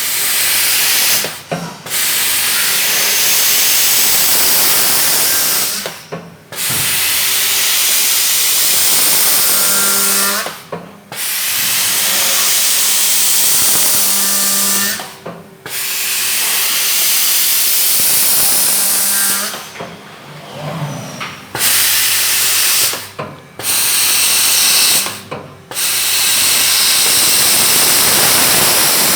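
ARTIKON CNC door-hinge machine working in repeated cycles: a loud hissing rush lasting about four seconds at a time, broken by short pauses about seven times.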